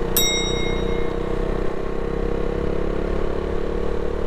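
Motorcycle engine running steadily at cruising speed, heard from the rider's position with road noise. Just after the start, a high, clear beep sounds for about a second.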